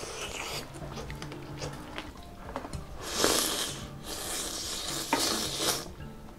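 A person slurping instant ramen noodles up from a bowl in two long, loud slurps about three and four seconds in, after a few seconds of softer chewing and mouth sounds.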